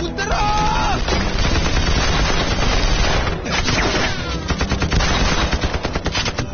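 Battle gunfire: rifles and machine guns firing in rapid, overlapping volleys, with men shouting near the start and again around four seconds in.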